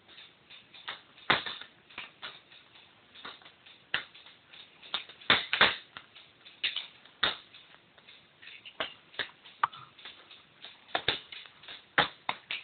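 Airsoft guns firing scattered shots: irregular sharp pops and clicks, some single, some in quick pairs, most dense around the middle.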